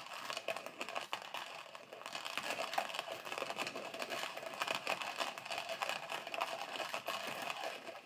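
OrJoeCoffee manual ceramic burr coffee grinder being hand-cranked, crushing coffee beans to a coarse grind: a continuous rapid crackling that stops at the very end.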